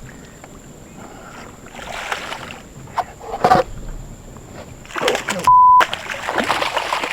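Water splashing as a hooked seatrout thrashes at the surface beside the boat, in irregular bursts. About two-thirds of the way in, a short, loud steady beep, a censor bleep, replaces everything for a moment.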